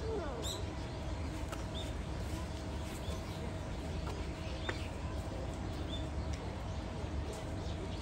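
Small birds chirping, short high calls about once a second, over a steady low rumble and a faint steady hum.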